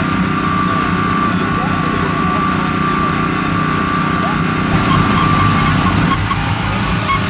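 An engine running steadily at idle, a constant hum with a steady whine over it. The sound changes abruptly about 5 seconds in.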